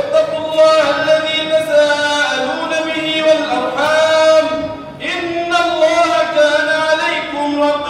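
A man's voice chanting in long, held melodic phrases through a handheld microphone, with a short break about five seconds in.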